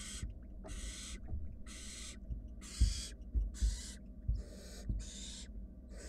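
Barn owl nestlings giving their rasping, hissing begging 'snores' in a steady rhythm, about one hiss a second, with a few soft low thumps in between.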